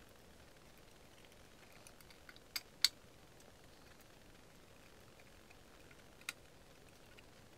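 Flat screwdriver working slotted screws in a metal saw base plate: faint light ticks, then two sharp metallic clicks close together about three seconds in and another a little after six seconds.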